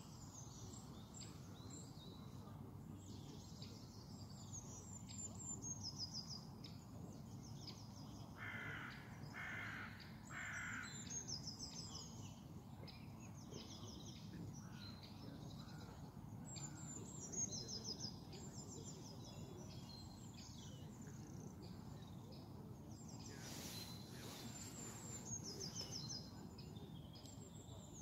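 Small songbirds singing throughout, with many short high trills and runs repeating. About a third of the way in a crow gives three harsh caws, and a low steady rumble runs underneath.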